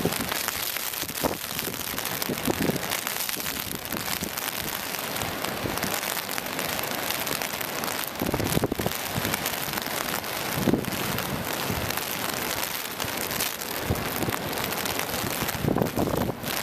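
Steady hiss of heavy rain and wind in the open, with gusts buffeting the microphone every few seconds.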